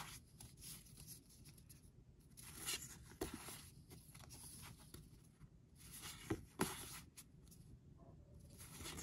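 Paper photo postcards sliding and rubbing against each other as a stack is leafed through by hand: a series of short soft swishes with a few light taps.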